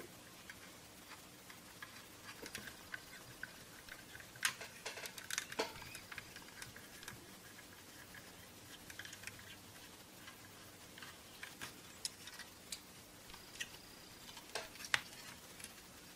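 Faint scattered clicks and light scrapes of hands handling a multimeter's circuit board and plastic case as the board is worked loose and lifted out, with a busier run of clicks about a third of the way in and a few sharper ones near the end.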